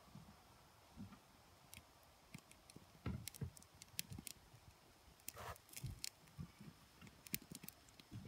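Campfire kindling and birch bark catching from a lit match, with faint, irregular crackles and pops that come more often from about three seconds in as the flame spreads.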